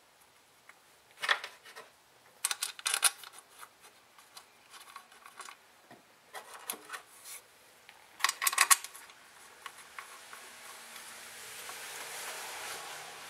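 Hands scraping and rubbing at bolts and the cast intake manifold while trying to thread the manifold's front bolts in by hand, in three short scraping bursts with small clicks between. A soft hiss builds over the last few seconds.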